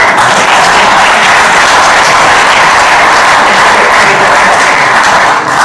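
Audience applauding, a steady dense clapping that fades out near the end.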